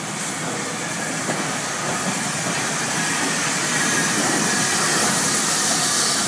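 Steam hissing steadily from the GNR(I) 4-4-0 steam locomotive No. 85 Merlin as it rolls slowly alongside, with a faint low rumble underneath; the hiss grows louder as the engine draws level.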